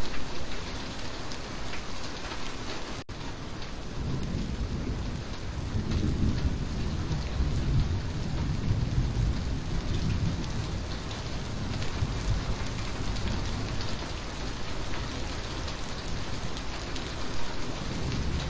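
Steady rain falling, with a long low rumble of thunder that swells about four seconds in and fades again past the middle.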